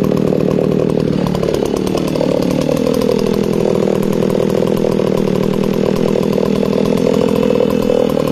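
Alpina A90 90cc two-stroke chainsaw running steadily, not cutting wood. Its pitch sags a little about a second in, then holds steady.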